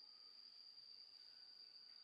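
Near silence: faint room tone with a steady high-pitched whine.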